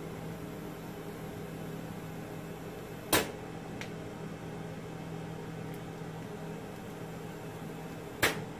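Robotic glue-dispensing cell running with a steady hum, broken twice by a sharp click about five seconds apart.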